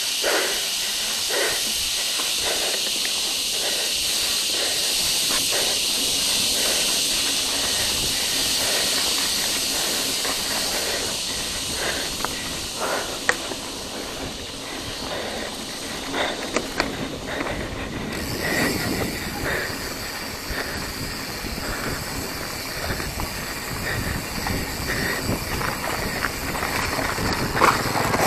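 Mountain bike rolling fast along a dirt and grass trail, heard through a handlebar-mounted action camera: a steady loud hiss of wind and tyre noise, with scattered clicks and knocks as the bike rattles over bumps. After about eighteen seconds the hiss eases and a low rumble with more knocks takes over.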